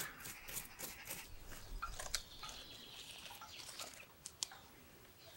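A metal tool and fingers working coarse, gritty bonsai soil around the base of a trunk, giving a run of small clicks, scrapes and crunches of grit. The clicks come thickest in the first second or so and then thin out as a cutting is pressed into the soil.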